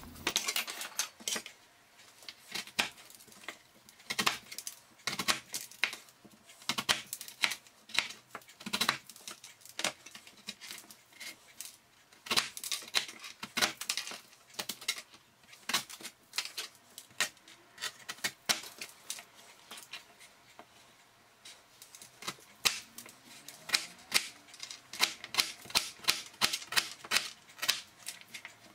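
Crinkle-cut (wavy-blade) knife chopping peeled celeriac on a plastic cutting board: a long series of sharp knocks at an uneven pace, with a pause of a couple of seconds about two-thirds through.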